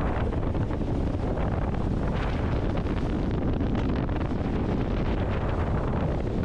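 Wind buffeting the microphone over the steady rush of a motorboat underway at speed: engine drone and water rushing past the hull.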